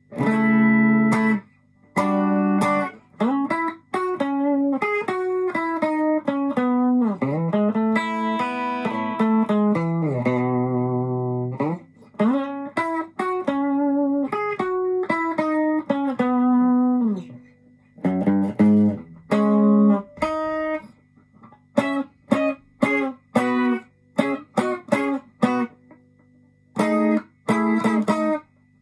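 Electric guitar, a Fender Japan ST62 Stratocaster, played clean through a Yamaha CO-01 compressor pedal into a Marshall Class5 amp. It plays a flowing line of sustained notes with string bends and slides, then short choppy stabs with gaps between them in the latter part.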